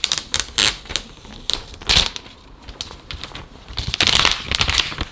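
Clear protective plastic film being peeled off a new iPad and crinkling in the hands: irregular crackles that become a dense, continuous crinkling about four seconds in.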